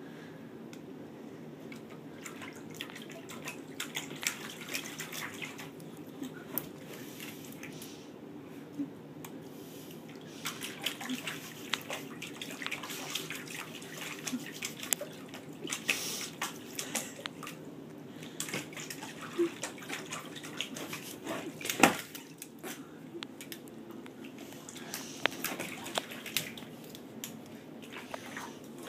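Border collie puppy splashing and drinking water in a plastic bowl: irregular splashes and drips, with one sharp louder splash about two-thirds of the way through.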